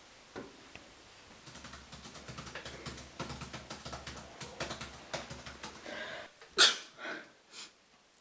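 Quick, irregular clicking of typing on a computer keyboard, then a loud, sharp sneeze about six and a half seconds in, with a short drawn-in breath just before it and two smaller bursts after.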